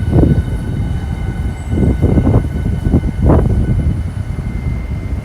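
High-speed electric train running through the station: a loud, low rumble with uneven thumps and a steady high whine over it.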